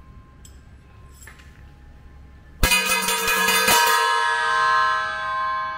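Metal struck with thin metal rods: a sharp clang, a second strike about a second later, then a long metallic ringing of many tones that slowly dies away.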